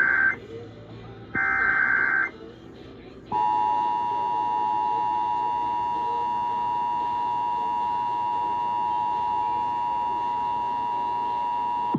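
Emergency Alert System tones over AM radio. Warbling digital header bursts, each about a second long, are heard: one ends just after the start and another follows about a second and a half in. About three seconds in, the steady two-tone EAS attention signal sounds, the alarm that announces an emergency alert.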